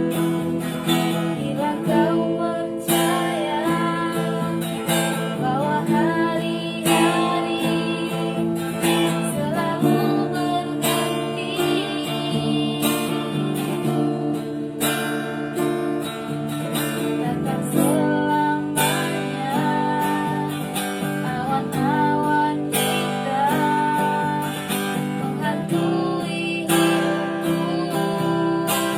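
A woman singing a melody with vibrato over a strummed acoustic guitar.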